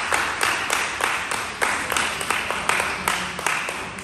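Applause from a group of people clapping their hands, thinning and fading out near the end.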